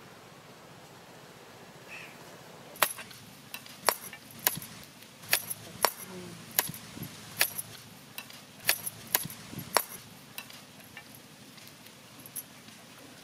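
Sickle blade cutting up crabs: about a dozen sharp, irregular clicks and cracks as the metal strikes and breaks through shell and claws, starting a few seconds in and stopping shortly before the end.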